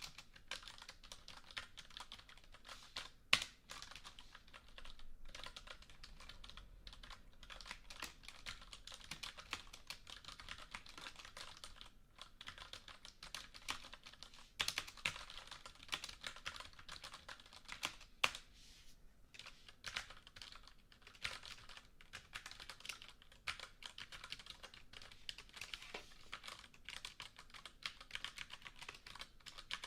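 Computer keyboard being typed on in a steady, continuous stream of key clicks, with a few louder single key strikes now and then.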